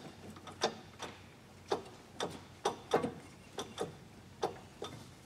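Irregular sharp metallic clicks, about a dozen, from a metal lathe as its crank handles and controls are worked by hand, over a faint steady low hum.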